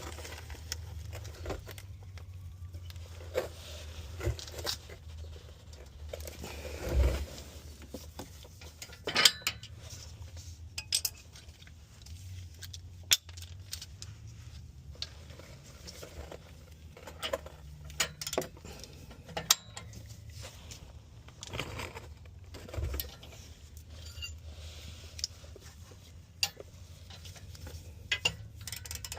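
Hand tools clinking and knocking: sockets, extensions and wrenches being fitted, tried and set down while working at a seized downstream oxygen sensor, in irregular metal clicks and clanks.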